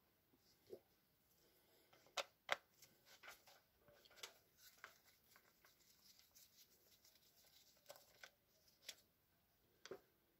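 Faint scattered clicks and taps of a hand screwdriver working the Torx screws in the housing of a cordless SDS hammer drill, with small parts being handled; two sharper clicks about two seconds in.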